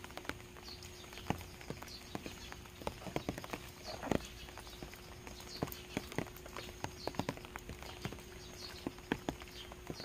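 Rain dripping off a thatched roof's eaves: irregular drops tapping on the ground and stones, with a louder cluster about four seconds in. Short, faint, high bird chirps come every second or so.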